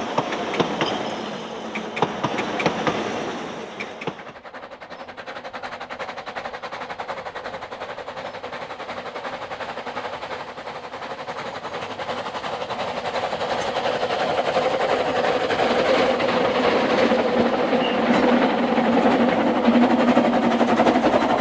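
Narrow gauge steam locomotive working, a fast, even run of exhaust beats that grows steadily louder as the train approaches. A louder stretch with sharp knocks breaks off suddenly about four seconds in.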